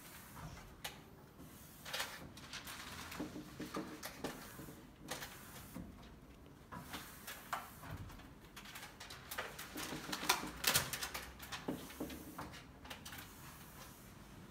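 Irregular scraping and rubbing strokes of a plastic squeegee and hand pressing adhesive film flat onto glass, with scattered small clicks and knocks.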